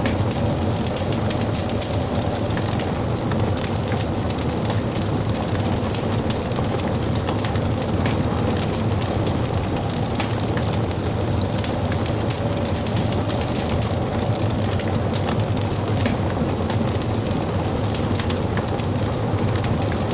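Wood fire crackling, with frequent small sharp pops over a steady low rumble.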